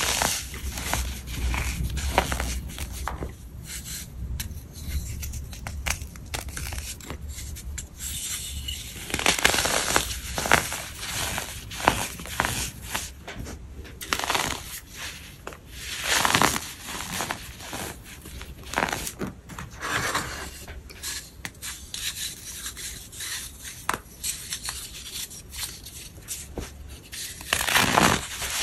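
Dry, chalky white blocks being crushed and crumbled, giving irregular crisp crunches and gritty crumbling. A few louder bursts of crunching come about nine seconds in, around sixteen seconds and near the end.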